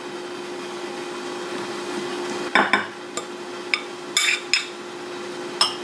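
A metal spoon scraping and knocking against a glass mixing bowl as chopped salad is pushed out into a small bowl: a handful of short scrapes and taps in the second half, over a faint steady hum.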